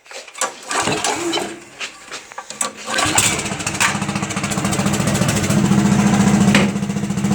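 The small gasoline engine of a late-1970s Roscoe one-ton roller being started: uneven noises for the first few seconds, then it catches about three seconds in and runs steadily with a fast, even beat.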